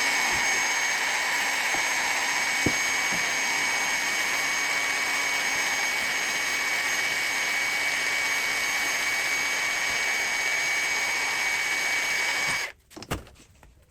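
Electric pipe-threading machine running steadily with a high motor whine while black steel pipe is cut or threaded. It shuts off suddenly near the end, followed by a single knock.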